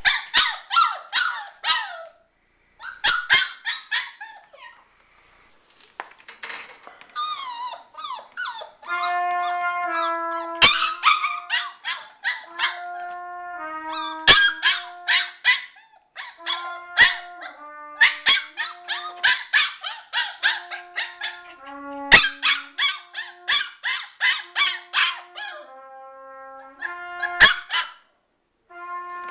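A Shiba Inu sings in runs of quick, high yips. About nine seconds in, a trumpet starts playing held notes, and the dog keeps yipping over them.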